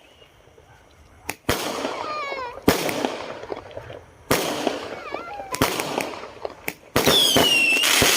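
Fireworks exploding: a run of sharp bangs starting about a second in, each followed by crackling. Near the end, a whistling firework's whistle falls in pitch.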